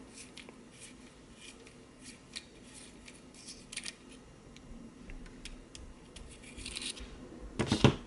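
Faint metal scraping and small clicks as a flashlight tail cap is turned against needle-nose pliers to unscrew its retaining ring, with one louder clack near the end.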